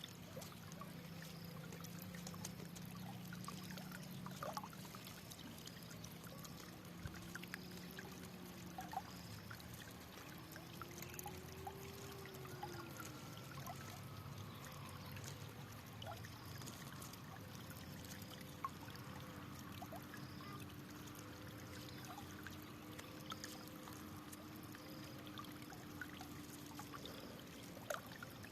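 Water trickling and pouring steadily over rocks, with many small splashes and drips throughout.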